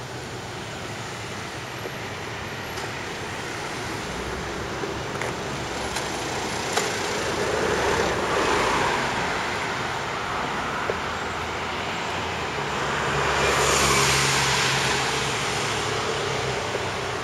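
Road traffic: motor vehicles passing along a street, their tyre noise swelling and fading twice, once about halfway through and again near the end, over a steady background of traffic noise.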